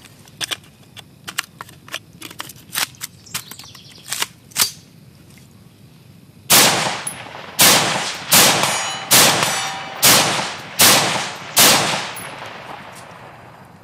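JP-15 AR-15 rifle handled with a run of light clicks and knocks, then firing about seven rapid semi-automatic shots, each ringing out behind it. The rifle is cycling every round again now that the water has been drained from its buffer tube.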